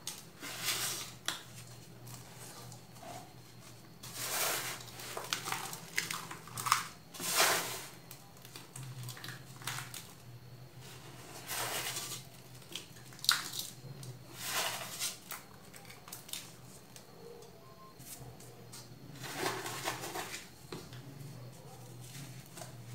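Hands squeezing and crumbling packed baking soda egg shapes and loose baking soda powder: irregular crunchy crumbling bursts, each about a second long, with a few sharp cracks among them.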